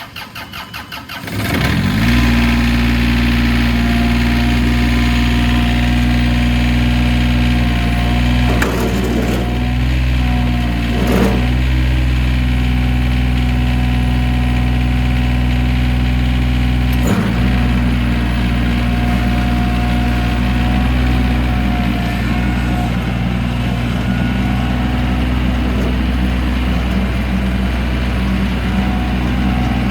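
John Deere F935 front mower's diesel engine cranked over by the starter for about a second and a half, then catching and settling into a steady idle. A few short knocks sound over the idle.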